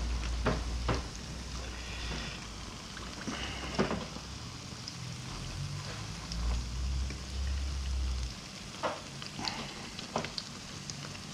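Corn-flour empanadas frying in hot oil in a pan, a steady sizzle, with several sharp clinks of metal forks against the pan as they are turned.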